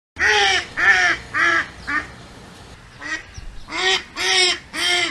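Duck quacking in two runs of about four short quacks each, with a pause of about a second between the runs.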